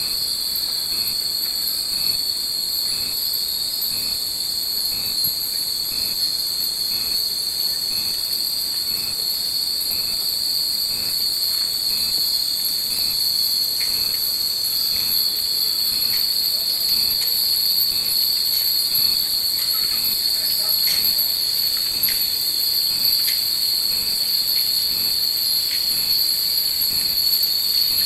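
Hanging wind chimes ringing now and then in the breeze, the short rings coming more often in the second half, over the steady high-pitched drone of summer cicadas.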